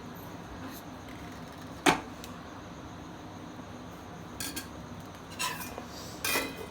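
Kitchen utensils knocking and clinking: one sharp knock about two seconds in, then a few softer clinks toward the end.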